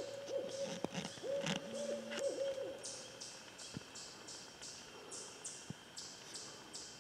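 An owl hooting a rapid, wavering series of hoots that ends about three seconds in.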